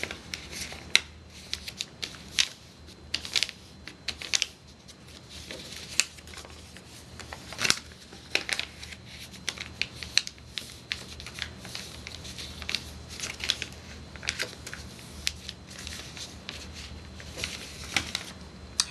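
Sheet of printing paper being folded and creased by hand: irregular crinkles, rustles and short sharp crackles as the folds are pressed down, over a low steady hum.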